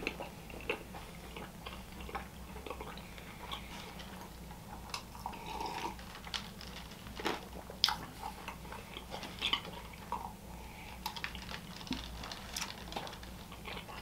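A person chewing a chicken slider, with irregular soft clicks and smacks of the mouth. A steady low hum runs underneath.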